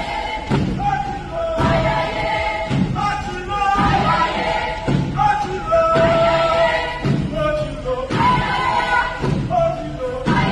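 A group of voices singing a Jamaican Revival chant together, over a heavy thud that falls about once a second.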